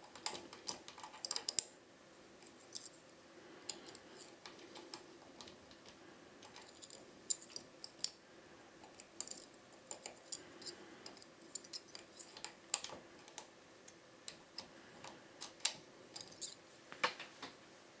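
Small, irregular metallic clicks and scrapes of a hook pick working the pin stacks of a Dom IX-6 KG euro profile cylinder held under tension by a tension wrench.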